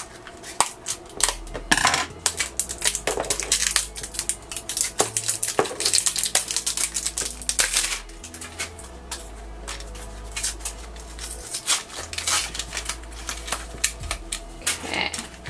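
Cardboard blind-box packaging being cut open with scissors and handled, a dense run of small crackles, snips and clicks as the box is torn and a hollow plastic toy carrier is pulled out and turned in the hands.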